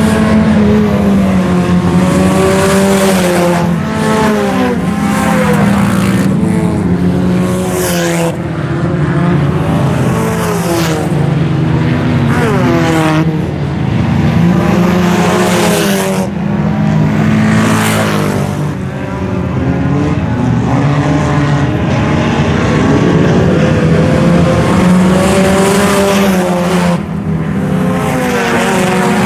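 A pack of IMCA Sport Compact race cars running around a dirt oval. Several four-cylinder engines rev up and down over one another, with loud close passes every few seconds.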